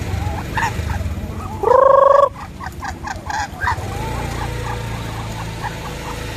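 Native chickens and ducks calling as they feed: a run of short calls, and one long, loud call that rises at its start, about a second and a half in.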